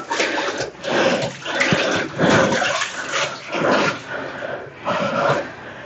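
Someone wading through knee-deep water in a rock pool, sloshing and splashing in a series of surges about once a second.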